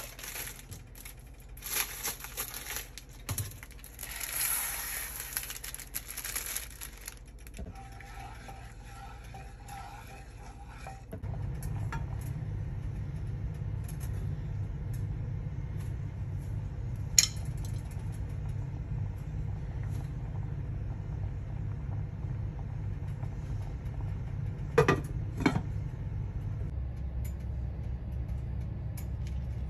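Cooking in a small saucepan: irregular rustling and scraping as ingredients go in and are stirred, then a steady low hum with a few sharp clinks of a utensil against the pan.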